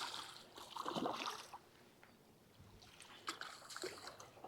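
Faint, irregular water splashing and sloshing as a hooked smallmouth bass is brought in, with a quieter spell midway and a scatter of short splashes and clicks near the end.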